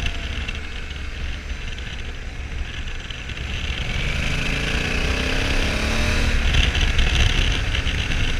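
Honda Africa Twin 1100's parallel-twin engine under heavy wind noise on the microphone, easing off as the bike slows, then pulling with rising pitch from about four seconds in as it accelerates back up to speed.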